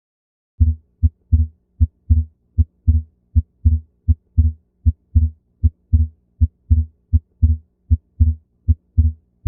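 Recorded human heart sounds starting about half a second in, a steady two-part beat at roughly 78 beats a minute. Each cycle is a short sharp sound followed by a longer, drawn-out one, over a faint steady hum.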